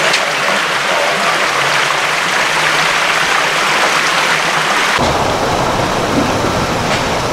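Loud, steady rushing and hissing of water pouring from a broken fire-sprinkler water main. About five seconds in it changes abruptly to a duller sound with a low rumble underneath.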